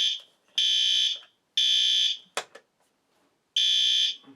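System Sensor P2RL fire alarm horn strobe's horn sounding loud in the temporal-three evacuation pattern: three half-second blasts, a pause of about a second and a half, then the next group begins.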